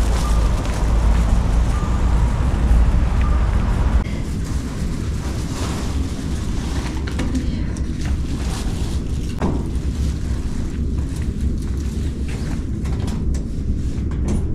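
Wind buffeting the camera microphone with a low rumble while walking outdoors in a snowy street. About four seconds in it cuts to a quieter indoor sound with scattered clicks and rustling at a hotel room door.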